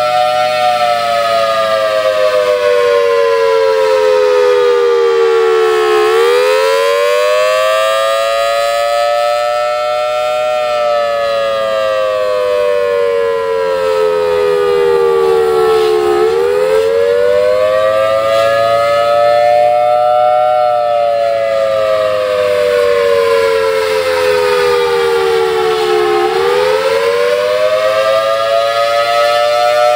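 Federal Signal Thunderbolt blower-driven outdoor warning siren sounding a loud, continuous wail during a test. Its pitch slowly rises and falls, dipping sharply about every ten seconds. The siren has a bad blower capacitor that the uploader says lowers its volume.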